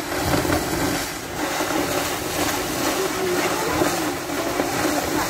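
Gas-driven mud eruption jetting high into the air: a steady, loud rushing hiss that does not let up.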